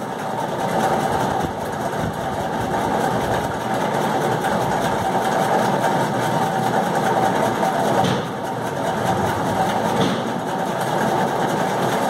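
A steady mechanical running noise, like a small motor or engine.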